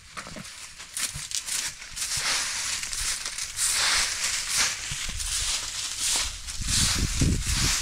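Hand-tied straw broom sweeping dry leaves and grit over hard ground in repeated swishing strokes, with a low rumble under the strokes from about five seconds in.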